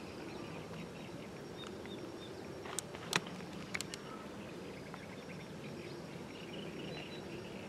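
Outdoor ambience: a steady low background hiss with faint bird chirps, and a few sharp clicks about three seconds in.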